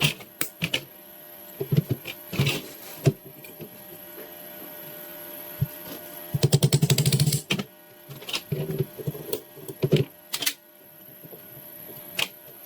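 Scattered sharp clicks and knocks, with a quick rattling run of roughly a dozen clicks about halfway through.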